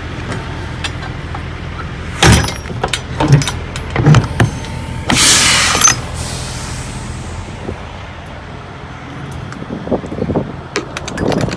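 Rear swing doors of a Vanguard Cool Globe refrigerated semi-trailer being shut and latched by hand. A few sharp metal clanks and knocks come first, then a loud rushing noise lasting about a second near the middle, then lighter clicks and clanks of the lock bars near the end, all over a steady mechanical hum.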